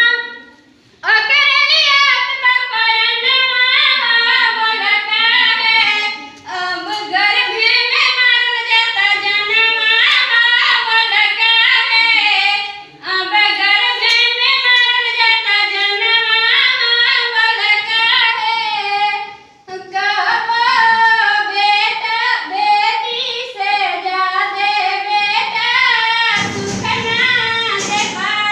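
A girl singing in long, wavering melodic phrases with short breaths between them. A brief rumbling noise sounds under the voice near the end.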